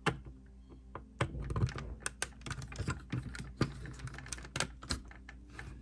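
Hard clear-plastic crystal puzzle pieces clicking and tapping against each other in quick, irregular clicks as a mast piece is handled and pushed into its hole in the ship's deck.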